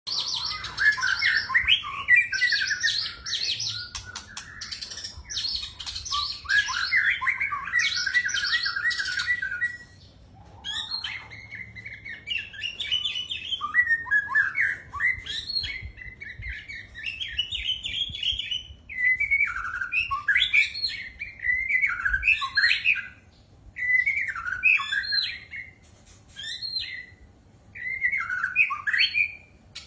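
A songbird singing a long, varied song of chirps, trills and whistled notes. It is dense and continuous for about the first ten seconds, then comes in short separate phrases with brief pauses. The recording is a masteran, birdsong played to teach a murai its song.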